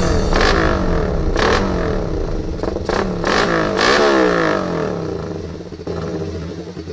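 Suzuki Raider 150 motorcycle engine being revved repeatedly, the pitch climbing and dropping several times, with a few sharp cracks among the revs. It fades away near the end.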